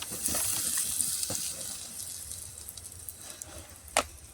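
Water being poured onto a small campfire to put it out, a rushing hiss that fades away after about two seconds. A single sharp click near the end.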